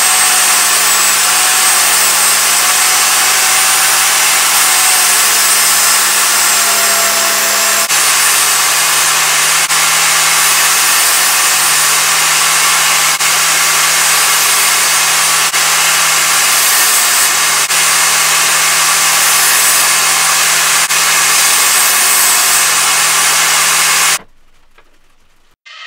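DeWalt DWE7492 jobsite table saw running steadily while ripping plywood strips, a loud whining motor and blade. The sound cuts off suddenly near the end.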